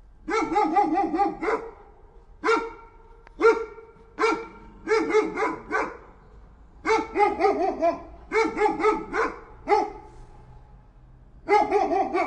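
A dog barking, mostly in quick runs of several barks with single barks and short pauses between the runs.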